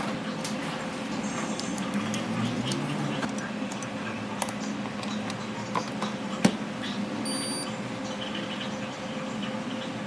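Steady electrical hum of repair-bench equipment with scattered small clicks of tools being handled, the sharpest about six and a half seconds in, and a short high electronic beep about seven seconds in.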